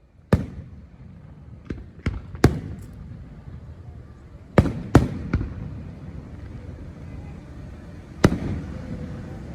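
Firecrackers and fireworks going off: about eight sharp bangs at uneven intervals, the loudest about two and a half, five and eight seconds in, over a steady rumble of more blasts further off.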